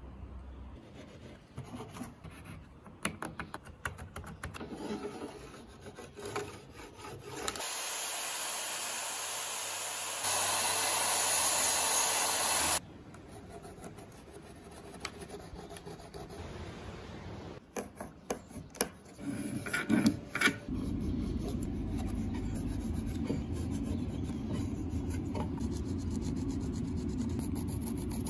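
Woodworking sounds: wood being handled, rubbed and scraped, with scattered clicks and knocks. Midway a steady noise starts and stops abruptly and gets louder partway through, and a steadier, lower scraping runs through the last part.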